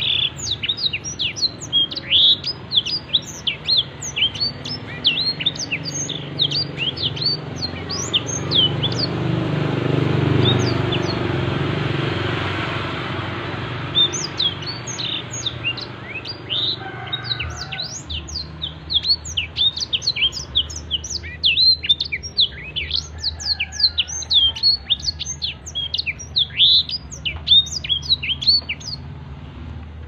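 Blackthroat (black-throated canary) singing: a fast, continuous string of high, thin, down-slurred chirps. About a third of the way in, the song breaks off for a few seconds while a low rumbling noise swells and fades, and then it starts again.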